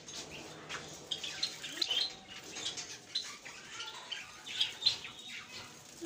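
Small cage birds of a mixed home aviary (budgerigars, cockatiels, Java sparrows) chirping: short high calls scattered throughout, with a louder one late on.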